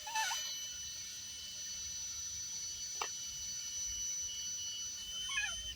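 Electric drill running at a steady high speed with a constant whine, boring a pilot hole into very hard wood. There is a single click about halfway through.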